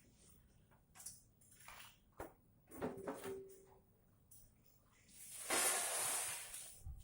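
Hands working on a power amplifier's metal casing: a series of light clicks and knocks with a brief squeak, then a louder scraping rush about five and a half seconds in, like a cover being slid or lifted off.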